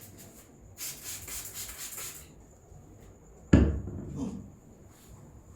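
Head massage: a short stretch of fine crackling, like fingers rubbing through hair, then one sudden loud slap of a hand strike on the head, with a smaller knock just after.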